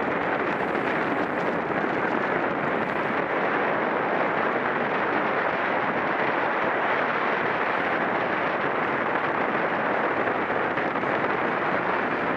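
Steady rush of wind noise on a bike-mounted camera's microphone at racing speed, with no breaks or changes.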